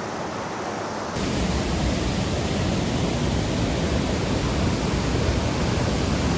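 Mountain river rushing over rapids, a steady loud rush of water that jumps suddenly louder and brighter about a second in.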